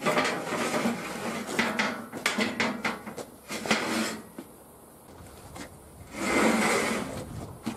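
A 6 mm steel plate being dragged across steel sawhorses and a steel table frame: rough scraping broken by several knocks for about four seconds, then a second, shorter scrape near the end.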